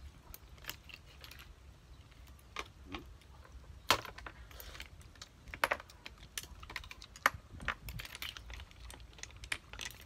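Irregular clicking and clattering of sikad-sikad sea-snail shells and metal spoons and forks knocking against shells, plates and dishes as several people pick the snail meat out. A few sharper clacks stand out.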